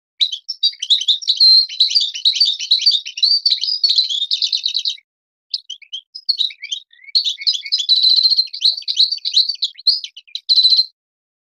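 European goldfinch (a Moroccan song goldfinch) singing its rapid twittering song full of fast trills. The song breaks off about five seconds in, with a few scattered notes, then takes up again and stops shortly before the end. This is a recording made as a tutor song for teaching young goldfinches.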